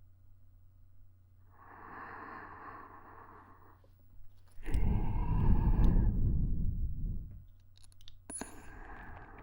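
Close-miked ASMR breathing into a binaural dummy-head microphone. A soft breath comes about two seconds in, then a louder, longer breath is blown onto the microphone from about five to seven seconds, with a low rumble of air hitting the mic. A few small sharp clicks follow near the end.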